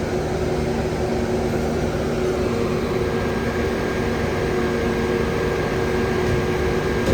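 Firefighters' ventilation fan running steadily, blowing smoke out of the building after a refrigeration unit overheated. It makes a constant rushing drone with a steady hum under it.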